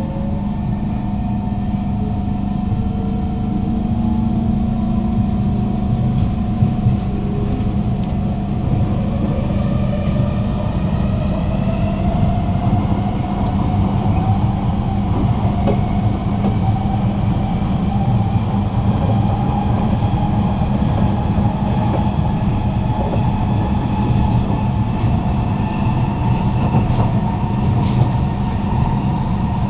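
Kawasaki C151 metro train's GTO-VVVF traction inverters and motors whining as it pulls away. Several tones climb slowly in pitch over about ten seconds and then level off, over a steady low hum and rail rumble inside the car. This is a slow, draggy pickup, which the uploader puts down probably to a motor failure somewhere on the train.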